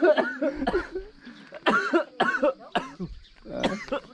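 A person's voice in three short bouts, with quieter gaps between.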